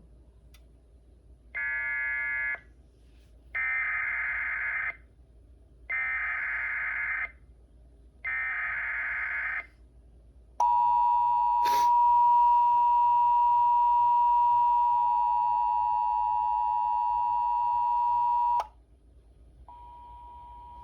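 Emergency Alert System signal on a weather radio broadcast: four short bursts of digital header data, then a steady two-tone attention signal lasting about eight seconds, with a single click partway in. A fainter two-tone sound comes back near the end.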